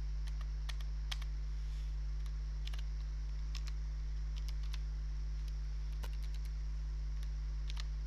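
Computer keyboard being typed on: scattered, irregular key clicks over a steady low electrical hum.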